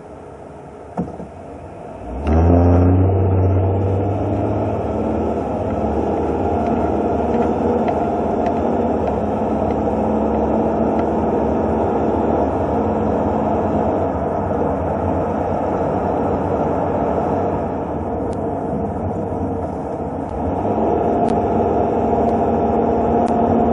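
Car engine and road noise from a moving car: quieter at first while the car is stopped, then the engine note climbs as the car pulls away about two seconds in, settling into a steady cruising drone.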